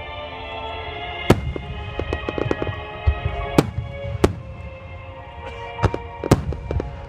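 Fireworks shells bursting in about five sharp bangs, with clusters of smaller crackling pops between them, over steady music.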